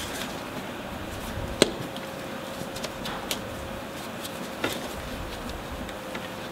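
Gloved hands working a rubber steering-rack boot onto a tie rod, making a few sharp clicks, the loudest about one and a half seconds in. A faint steady hum runs underneath.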